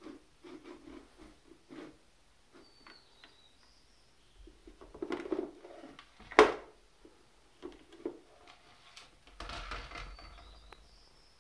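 Hard white plastic bowl being nudged and tipped by a cat on a wooden floor: scattered light knocks and scrapes, one sharp clatter a little after six seconds in as it tips, and a longer scraping slide near the end.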